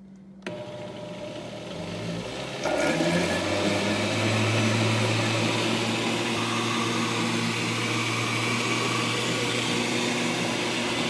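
Oster countertop blender with a jar full of milk, eggs, sugar and butter starting up and blending the pudding batter. The motor spins up over the first couple of seconds, steps up louder, then runs steadily.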